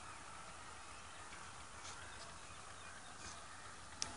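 Faint steady outdoor background hiss, with a few soft clicks and one sharper click near the end.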